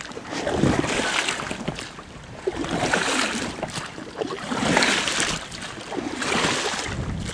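Paddle strokes in river water beside an inflatable boat: a swishing splash about every two seconds.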